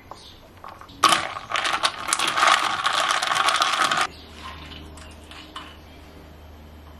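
Ice cubes clinking and rattling against the sides of a glass mason jar as an iced matcha latte is stirred. A dense clatter lasting about three seconds that stops abruptly.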